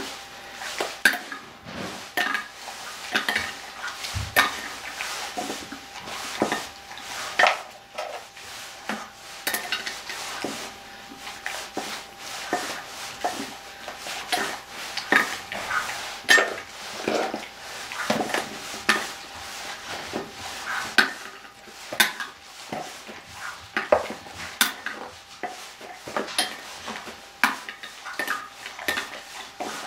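Dog eating treats from a stainless steel bowl: irregular metallic clinks and rattles, several a second, as its muzzle and the treats knock against the bowl.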